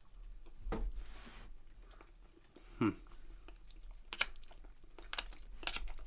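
A person chewing a mouthful of tofu and rice, with a short falling hum about three seconds in and a few light clicks in the second half.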